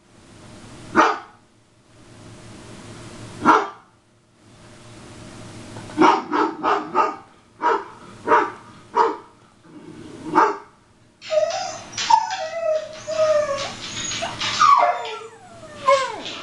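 Recorded dog barking played through computer speakers: a single bark about a second in and another at three and a half seconds, then a quick run of barks between about six and eleven seconds. After that come high whining and yelps that fall in pitch.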